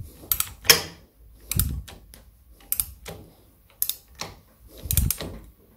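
Ratchet torque wrench run back and forth on the clutch hub nut: five bursts of rapid clicking about a second apart, some with a dull knock, as the nut is wound down.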